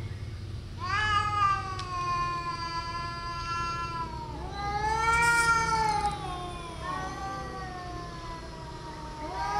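Cats yowling in a standoff, the drawn-out threat calls of a territorial face-off: three long wavering yowls, the first about three seconds long and slowly falling, the second and loudest rising then falling, the third falling away, with another starting near the end.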